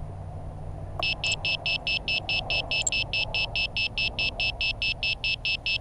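Rapid electronic beeping from an FPV quadcopter sitting motionless: a high-pitched beep repeated about five times a second, starting about a second in, over a steady low hum.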